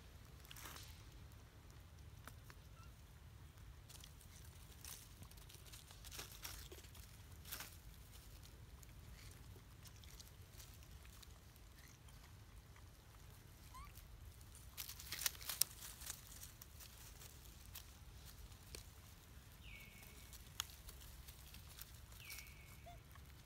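Faint rustling and clicking of macaques moving and feeding in dry leaf litter over a low steady rumble, with a cluster of sharper clicks about two thirds of the way through. Near the end come two short high calls, each falling in pitch.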